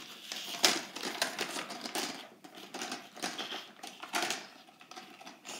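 Plastic felt-tip markers clicking and clattering against one another and their plastic cups and holder as they are rummaged through and picked out, a quick run of irregular clicks.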